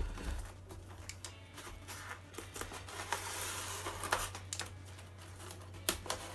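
Snap-off utility knife slicing through packing tape along the seam of a styrofoam box, a scratchy cutting sound with scattered clicks from handling the box, and one sharp knock near the end.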